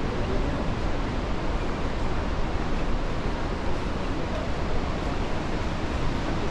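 Steady rushing of fast whitewater from a mountain river and its waterfall, an even, unbroken wash of noise.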